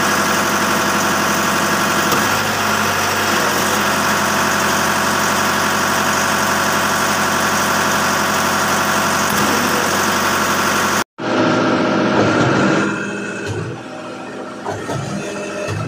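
Schwing Stetter SP1200 concrete pump's engine running steadily with a dense, even hum. About eleven seconds in the sound cuts off abruptly and returns quieter, with a few dull thumps.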